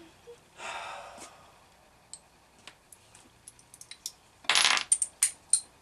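Metal hand tools clinking on a workbench as a socket is handled and fitted onto a wrench: light scattered clicks, with a loud metallic clatter about four and a half seconds in.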